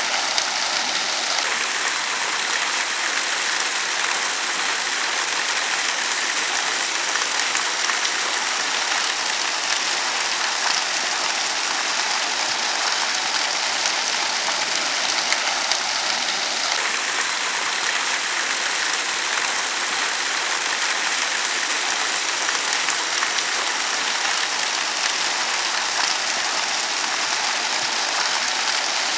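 Water falling and splashing steadily from a man-made waterfall: an even, unbroken hiss with no pauses.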